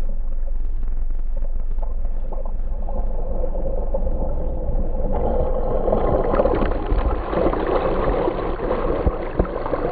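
Muffled rushing of water and wind against a GoPro in its waterproof housing on an inflatable tube towed across a lake, with the splashing getting heavier from about halfway through as spray washes over the tube and the camera goes under.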